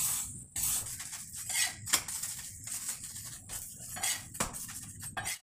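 Flat spatula scraping and tapping on a tawa as an oiled aloo paratha fries with a steady hiss of sizzling oil; sharp clicks about two seconds in and again past four seconds. The sound cuts off suddenly just before the end.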